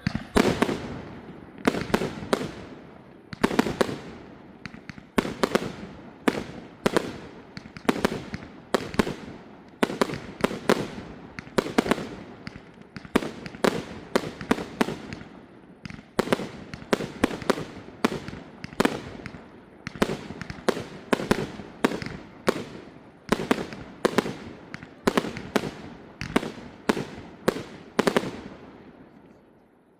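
Fireworks display: a dense run of sharp aerial shell bursts, about two bangs a second, each trailing off in echo.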